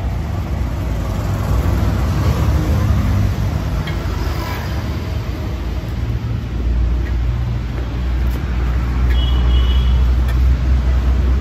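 Street traffic noise: a steady low engine rumble that grows louder about halfway through, with a brief high-pitched beep near the end.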